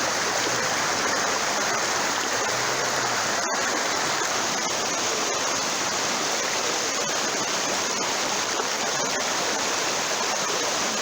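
Floodwater rushing across a road: a steady, constant rush of moving water, with a split-second break about three and a half seconds in.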